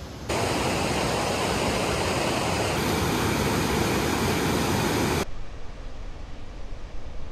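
Whitewater of a mountain creek rushing down a granite cascade, a loud steady rush that sets in sharply just after the start. About five seconds in it drops abruptly to a quieter, steady rush.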